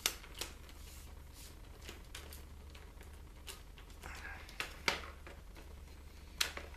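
Scattered clicks and knocks of a Vivitar 57-inch tripod's plastic leg locks and leg sections being handled as a leg is extended, with the loudest knock about five seconds in. A steady low hum runs underneath.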